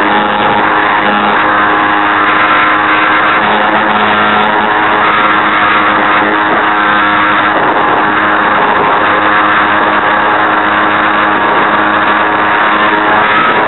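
Electric motor and broken gearbox of an RC Super Cub model airplane running steadily under power, picked up by the onboard camera: a loud, unbroken drone with several held tones over a rushing noise.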